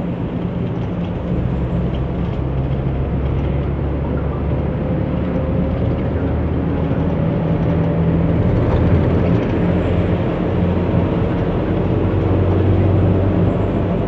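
Engine and road noise of a moving vehicle heard from inside it: a steady low hum whose pitch drifts and rises slowly partway through.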